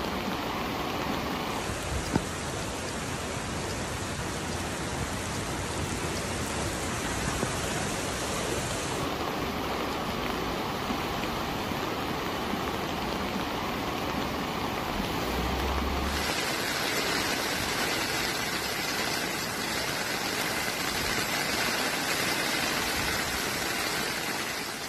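Heavy rain and rushing floodwater, a steady hiss and rush of water that changes in character a few times as the footage switches between scenes. There is a brief sharp click about two seconds in.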